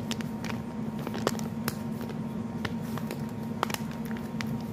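Handling noise of papers being shuffled and sorted: scattered light clicks and taps at irregular times over a steady low hum.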